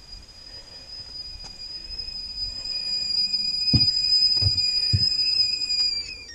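Whistling kettle at the boil, one steady high whistle that grows louder, then drops in pitch and dies away near the end as the gas is turned off under it. A few dull thumps in the middle.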